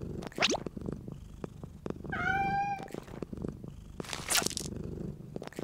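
Domestic cat purring steadily, with a short upward-sweeping chirp about half a second in, a meow about two seconds in, and a brief breathy rush of noise a little after four seconds.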